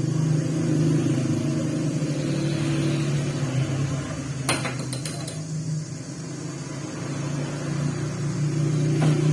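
Electric stand fan motor running with a steady low hum that swells and eases a little. A few sharp clicks come about halfway through, and one more near the end.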